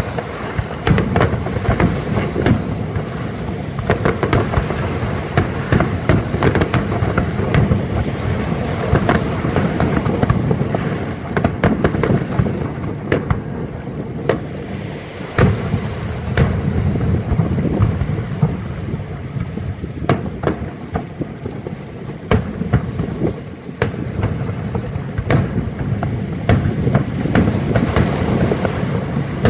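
Aerial firework shells bursting in rapid, irregular succession: many sharp bangs, some louder than others, over a continuous low rumble.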